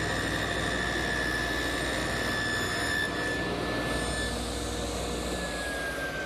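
Woodworking power tool running with a steady high whine while cutting a dado in drawer-side stock; about five seconds in the whine begins to fall slowly in pitch as the motor is switched off and winds down.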